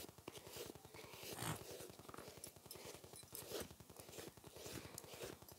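Faint rustling and scraping, small handling noises, with a slightly louder rustle about one and a half seconds in and another a little past the middle.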